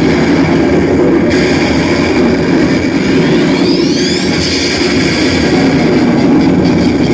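Loud steady roaring sound effect from the tableau show's recorded soundtrack, with a brief rising whistle about three seconds in.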